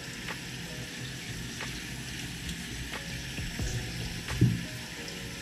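Tap water running steadily into a stainless steel sink, with a few light knocks of a cleaver chopping fish on a plastic cutting board and one louder thud a little after four seconds in.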